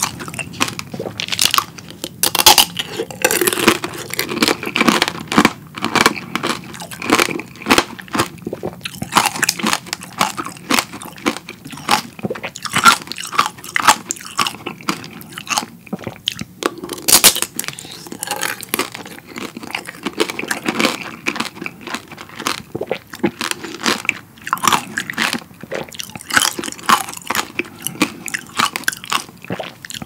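Close-miked crunching and chewing of strawberry tanghulu: the hard candied-sugar shell cracks and shatters between the teeth, and the fruit underneath is chewed. The crunches come in rapid, irregular clusters throughout.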